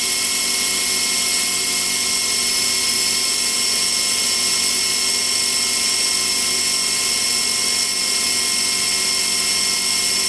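Small RC helicopter's newly installed main motor spinning the rotor at low throttle, about 20 to 23 percent: a steady high-pitched whine with no change in speed.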